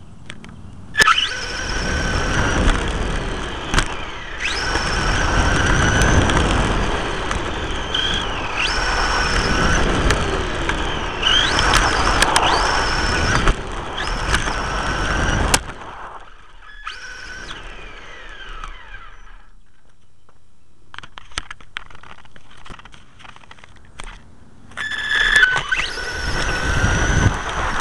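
Team Associated RC18T2 electric RC truck's motor and gears whining, heard from a camera mounted on the truck, the pitch rising and falling with the throttle over a rumble and rattle of tyres on pavement. It runs for about fifteen seconds, drops to faint clicks and rattles for several seconds, then starts up again near the end.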